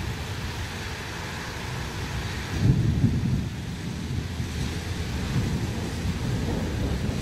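Thunder rumbling in a thunderstorm, swelling into a loud low boom about two and a half seconds in, over a steady hiss of heavy rain.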